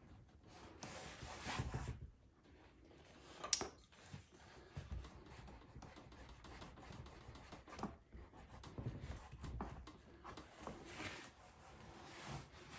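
Seat leather being rubbed and worked by hand to shape it onto a saddle tree: soft, uneven rubbing and brushing, with one sharp click about three and a half seconds in.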